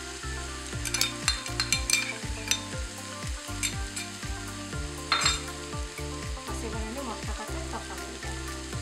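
Moong dal, potato and pea mixture frying in oil in a pan, sizzling steadily with scattered crackles, a few stronger pops about five seconds in.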